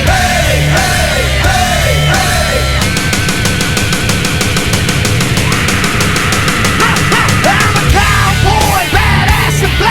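Loud heavy rock music with distorted electric guitar and drums, with a stretch of fast, even drum strokes through the middle.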